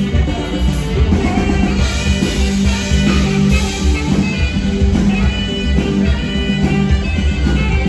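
Live band music: an instrumental passage with bass and drums under sustained melody notes, with no singing.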